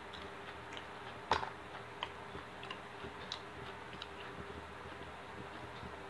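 Quiet, close-miked eating: scattered soft clicks of chewing and mouth noise at an uneven pace, with one louder click about a second in, over a faint steady hum.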